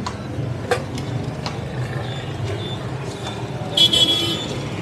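Steady city-street traffic noise, a low hum of passing vehicles. About four seconds in there is a brief, loud, high-pitched sound.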